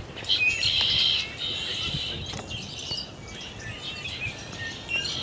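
Small songbirds chirping and twittering in high, quick notes, loudest in the first second and a half and then fainter.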